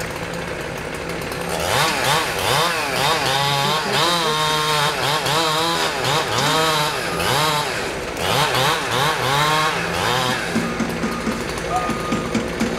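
Chainsaw running and cutting, its pitch sagging and climbing back over and over as the chain loads and frees in the cut, over a truck engine idling. A truck's reversing beeper starts near the end.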